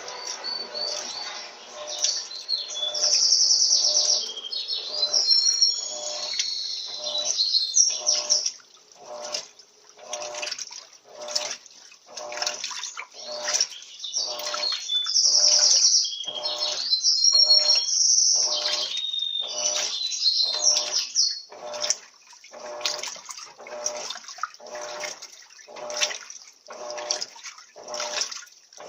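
Washing machine agitating a wash load: water sloshing in rhythmic strokes about once a second as the agitator swings back and forth. Birds chirp over it twice, a few seconds in and again around the middle.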